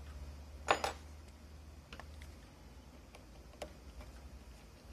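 Small clicks and taps of a metal pry tool and an opened phone being handled on a workbench, with a louder double clack about a second in and lighter ticks after it, over a low steady hum.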